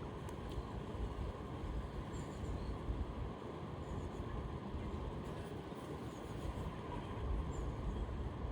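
Steady rush of river water with wind buffeting the microphone, and a few faint high chirps.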